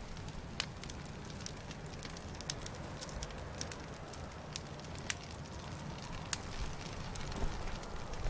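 Burning torches crackling: a steady hiss with scattered sharp pops.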